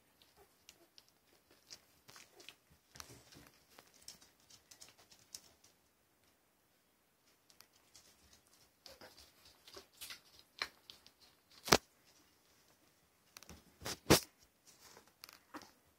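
Small litter of Shih Poo puppies nursing and shifting against their mother, with soft scattered smacking and rustling on the blanket. Then handling noise at the wire pen: a run of clicks and two sharp, loud clicks about twelve and fourteen seconds in.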